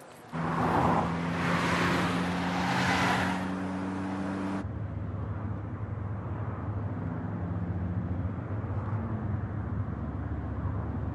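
Car cabin noise while driving: a steady low drone of engine and tyres. It is preceded by a louder rushing noise with a steady low hum that swells twice and cuts off abruptly about four and a half seconds in.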